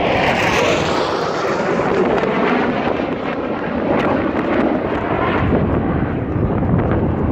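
Jet noise from a low-flying single-engine F-16 fighter passing close by. A loud rushing noise drops in pitch over the first couple of seconds as the jet goes past, then carries on as a duller rumble while it moves away.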